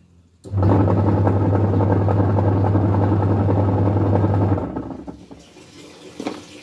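LG top-loading washing machine's motor driving the pulsator: a steady low hum with a churning rumble that starts about half a second in, runs for about four seconds, then winds down and fades.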